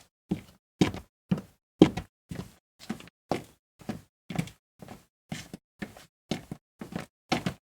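Footsteps sound effect: a person walking at an even pace, about two steps a second, each step a sharp low thud.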